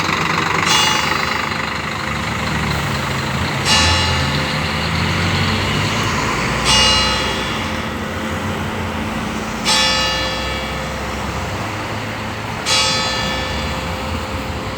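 Single church bell tolling, struck five times about three seconds apart, each stroke ringing on and fading before the next: the bell rung to call people to mass. Road traffic rumbles underneath.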